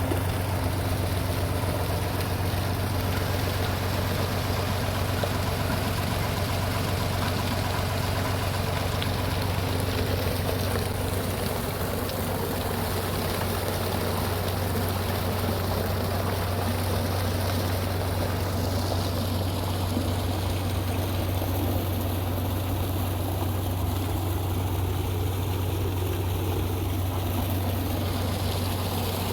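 A steady rushing noise with a constant low hum beneath it.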